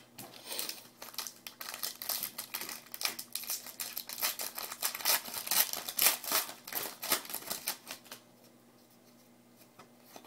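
Hockey card packs and cards being handled, with rapid crinkling and clicking that stops about eight seconds in.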